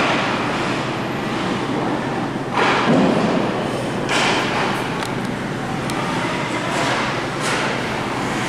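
Ice hockey game sound in an arena: steady rink noise broken by sudden hits, the loudest a heavy thud against the boards about three seconds in, with sharper knocks about a second later and again near the end.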